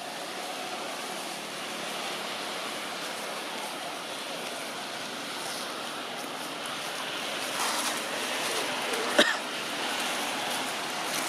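Steady outdoor background hiss with no clear pitched sound. A single sharp click about nine seconds in is the loudest moment.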